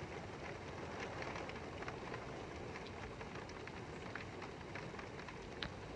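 Steady rain during a thunderstorm, with many single drops striking a hard surface as sharp ticks.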